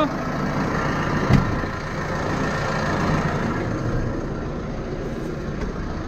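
Steyr Profi 4110 CVT tractor engine running steadily at close range, with a single knock about a second in.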